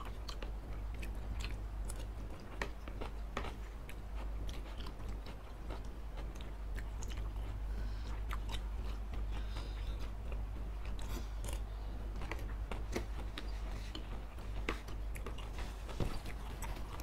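Close-miked chewing and biting of noodles and chicken satay, with many scattered sharp clicks as spoons and forks scrape and tap against the serving dish. A steady low hum runs underneath.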